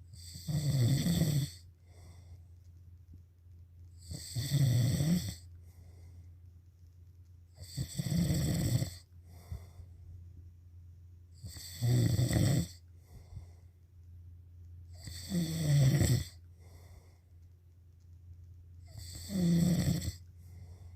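Snoring in a slow, regular rhythm: six loud snores about every three and a half to four seconds, each lasting about a second, with softer breaths in between. A steady low hum runs underneath.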